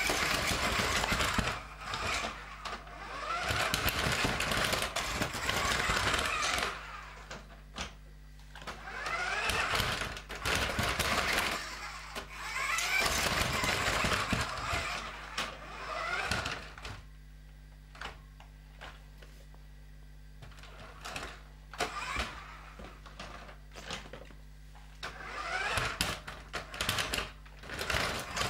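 Toy RC monster truck's electric drive motor and gearbox whining in bursts, rising in pitch each time it speeds up, with knocks as the tyres climb over a corrugated cardboard ramp. Near the end of the second third it goes quiet for several seconds before a last burst.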